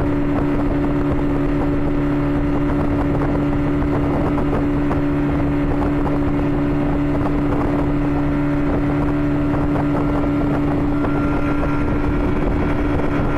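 Boat engine running steadily at a constant pitch, heard from aboard the boat, over the rush of water and wind.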